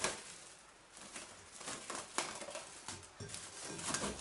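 Plastic cling film pulled off the roll, stretched over a glass bowl and pressed around its rim: a rustling crinkle with several sharp crackles, the strongest at the start, about two seconds in and near the end.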